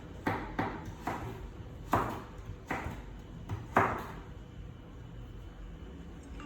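A series of sharp knocks at irregular intervals, the loudest about two and four seconds in, then a quieter stretch.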